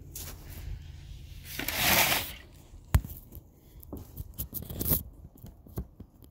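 Handling noise from a phone being moved and set down on a deck: a loud rustle about two seconds in, a sharp click about a second later, then scattered light taps and scrapes.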